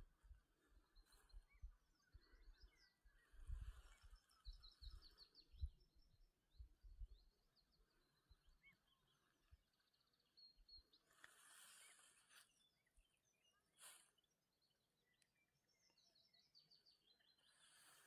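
Near silence outdoors with faint small-bird song: short, high chirping trills scattered throughout. Low wind buffets hit the microphone in the first several seconds, and there are two brief rushes of wind noise near the middle.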